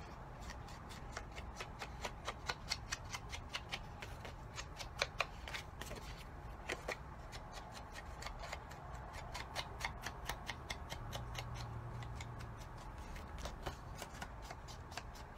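Ink dabber tapped again and again against the edges of a die-cut paper piece, with the paper rustling in the hand: a run of quick, light taps, several a second.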